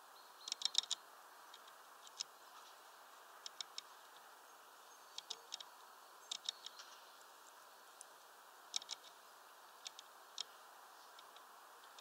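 Grey-headed woodpecker pecking at fat in a spiral wire feeder: short clusters of sharp bill taps, three to five quick strikes at a time, every second or two, over a faint steady hiss.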